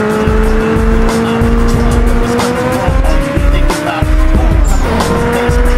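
Film soundtrack of an animated tuner car: a sustained pitched engine or tyre whine that rises slowly, breaks off about four and a half seconds in and starts again. Underneath it runs dance music with a heavy bass beat.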